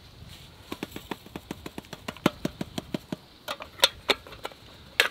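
Irregular light clicks and taps from a metal camp coffee percolator as ground coffee is poured into its basket and the basket's perforated lid is fitted. There are a few sharper metal clinks near the middle and right at the end.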